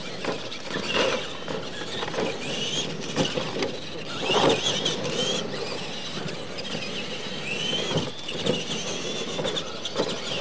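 Radio-controlled electric monster trucks racing on a dirt track: a high motor and gear whine that rises and falls with the throttle, broken by several sharp knocks as the trucks land from jumps and hit ramps.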